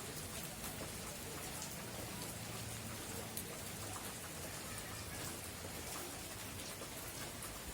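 Steady rain falling, with many individual drops ticking on surfaces.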